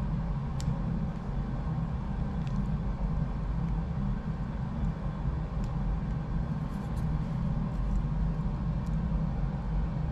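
A steady low background rumble, with a few faint light clicks from small plastic throttle parts being handled with a screwdriver.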